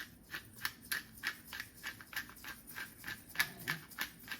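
Pepper mill being twisted to grind black peppercorns, a steady run of short crunchy clicks at about three a second.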